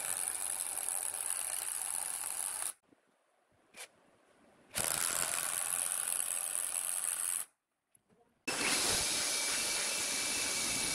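Cordless drill driving long screws into pine wood, running in three bursts with brief pauses between them.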